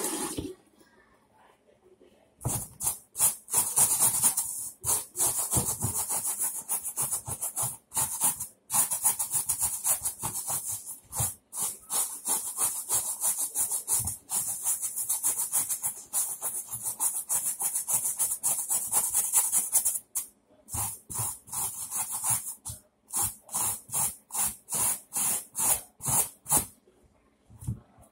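Brush scrubbing a red Nike Air Huarache sneaker in quick back-and-forth strokes, starting about two seconds in, with a few short pauses. Near the end the strokes come slower and separate.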